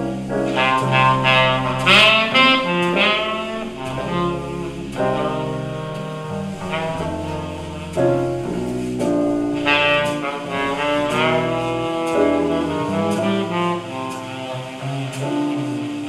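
Small-group jazz recording: a saxophone plays a flowing melodic line over plucked double bass.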